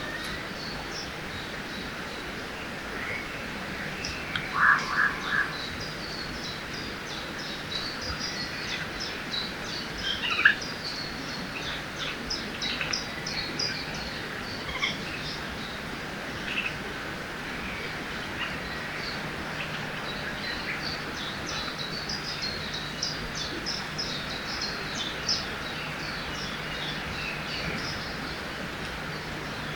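Forest birdsong: many small birds chirping and twittering over a steady rushing background of a river. A louder cluster of four quick notes comes about five seconds in, and a single sharp call comes near ten seconds.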